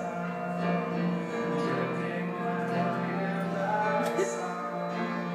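Background music: a song with held notes and a steady level.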